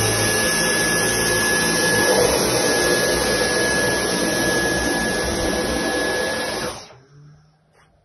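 Stick vacuum cleaner running on a carpet, a steady rushing noise with a high whine, then switched off about seven seconds in and cutting out quickly.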